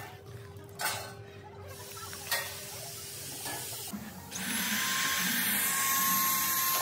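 Two light knocks, then about four seconds in a power tool's motor starts and runs steadily, with a steady whine over a loud rushing noise.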